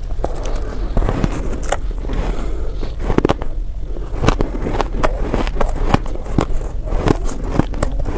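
Close-up crunching and chewing of reshaped shaved ice, a block of shaved ice pressed back into shape, crunchy and powdery: irregular crisp crackles several times a second as the ice is bitten and chewed.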